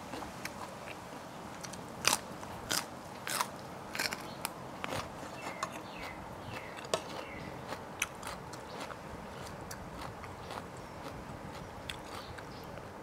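Close-miked chewing of crunchy food, crisp lettuce leaf among it: a few sharp crunches about two to four and a half seconds in, then softer, irregular chewing clicks.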